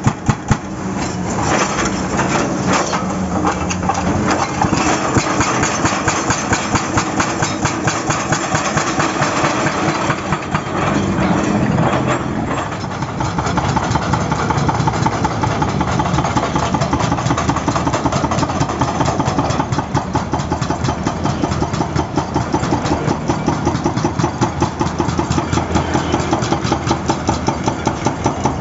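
Excavator-mounted hydraulic breaker hammering in a fast, even run of repeated blows, over the excavator's engine running.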